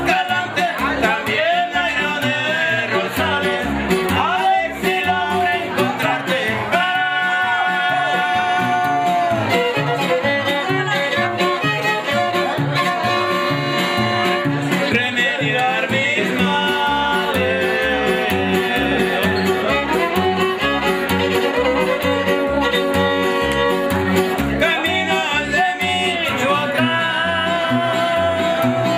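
A live string group playing: a violin carries the melody over a strummed guitar and an upright bass keeping a steady beat.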